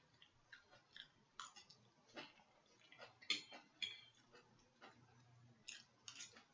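Quiet, irregular clicks and smacks of eating: a fork tapping against a plate of food, and chewing.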